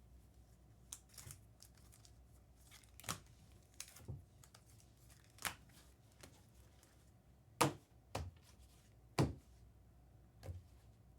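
Trading cards and their packaging handled on a table: a handful of sharp, irregularly spaced taps and clicks, the loudest two in the second half, over soft crinkling and rustling.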